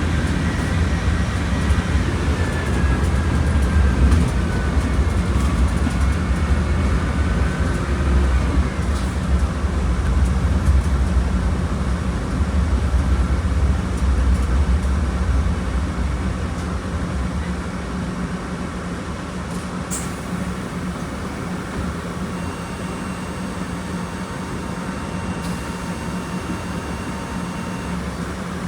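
Diesel engine of a Volkswagen Volksbus 17.230 Euro 6 bus running under way with a steady low rumble. A whine falls in pitch over the first several seconds, and the sound settles lower and steadier in the second half.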